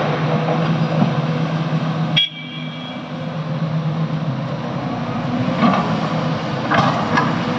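Heavy diesel machinery engine running steadily under load, with a sudden drop in sound about two seconds in and a few sharp clanks in the second half.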